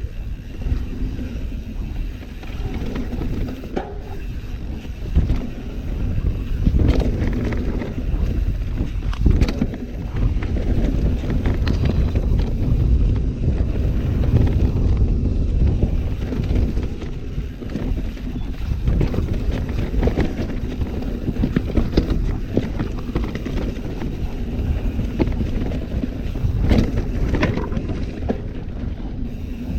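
Mountain bike ridden down a rough downhill trail: tyres rumbling over dirt and rocks, with repeated sharp knocks and rattles as it hits bumps, and wind on the microphone.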